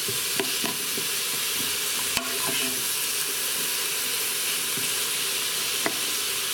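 Diced onions and green bell pepper sizzling in butter in an electric pressure cooker's inner pot, being stirred with a plastic spoon. A few light clicks and knocks come from the spoon against the pot.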